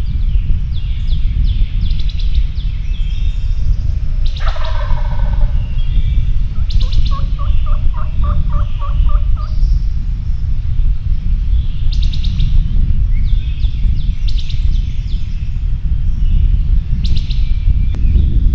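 Wild turkey gobbler gobbling once, about four seconds in, over songbirds chirping. Around eight seconds a run of about ten evenly spaced yelping notes follows, with a steady low rumble underneath.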